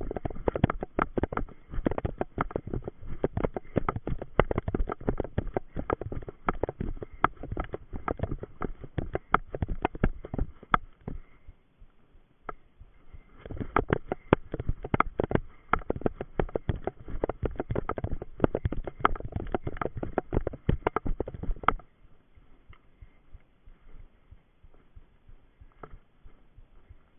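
Running footsteps and the brush of vegetation against the body, heard through a body-worn camera, in a quick, uneven patter of thuds. They ease off briefly about twelve seconds in, then stop abruptly about twenty-two seconds in, leaving only faint rustling.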